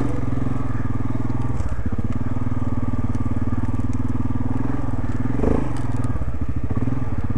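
Yamaha ATV's single-cylinder engine running steadily at low revs as the quad creeps over logging slash.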